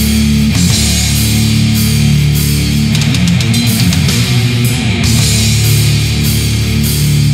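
Old-school death metal recording: a distorted electric guitar riff over drums and cymbals. About three seconds in, the cymbals thin out for a couple of seconds under a run of quick drum hits.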